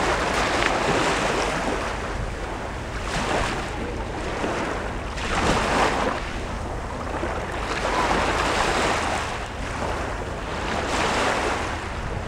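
Small waves washing in on a shore, a surge every two to three seconds, with wind rumbling on the microphone.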